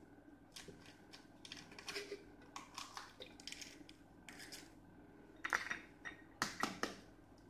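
Eggs cracked against the rim of a plastic blender jar: faint clicks and taps as the shells break and are pulled apart over the jar, with a sharper set of cracks near the end as the second egg is broken.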